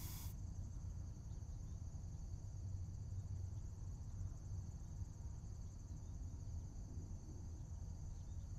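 Animation sound effects: a rush of air hissing cuts off just after the start, leaving a steady low rumble with a faint, high, rapidly pulsing chirr over it.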